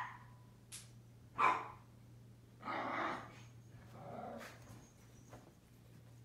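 A Pomeranian barking: three short barks about a second and a half apart, the first the loudest and the later ones softer. A steady low hum runs underneath.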